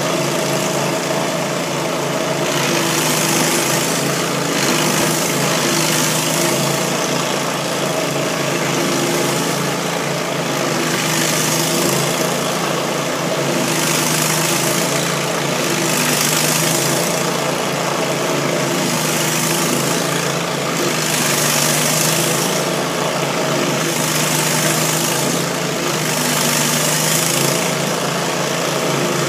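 Industrial stump grinder's gas engine running steadily under load while its cutter wheel grinds into a stump, a hissing grind that swells about every two and a half seconds.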